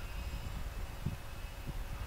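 Wind buffeting the microphone with low irregular rumbles, over a faint steady high whine from a distant radio-controlled model Hercules flying near full throttle.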